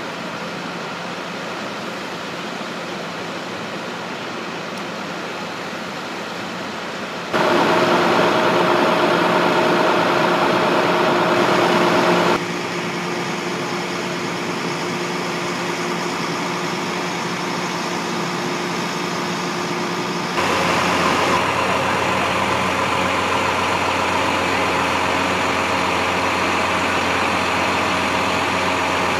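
Fire truck's engine idling, a steady hum with a few steady tones. It jumps in level abruptly about seven seconds in, drops about twelve seconds in and rises again near twenty seconds.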